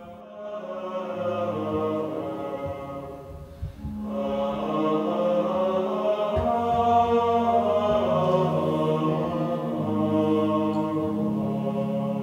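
A choir of Benedictine monks singing a chant in held notes. The singing dips briefly, then comes back fuller and louder about four seconds in.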